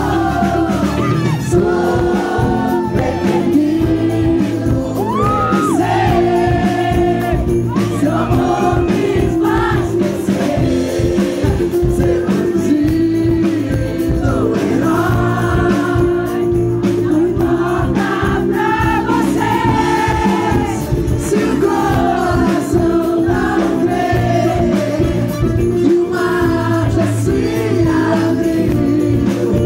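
Christian pop band playing live, with a man singing lead into a microphone over a steady held chord.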